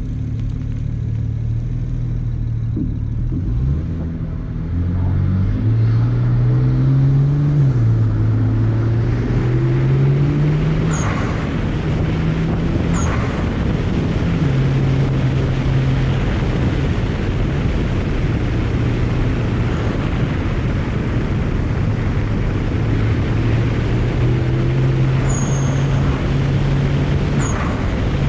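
BMW 335i's N54 twin-turbo straight-six running under load through the gears, its pitch climbing and dropping at each shift. An HKS blow-off valve vents a short, high hiss four times as the throttle closes, dumping boost.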